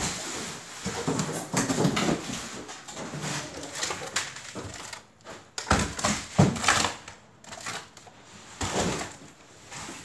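Plastic food containers clacking, knocking and scraping as they are handled and stacked in and on a chest freezer, in irregular bumps with the sharpest knocks about six to seven seconds in.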